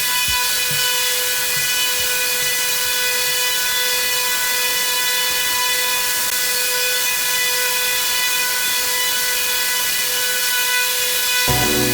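A small motor or power tool whining steadily at constant speed, with a hiss. Music with a beat comes in near the end.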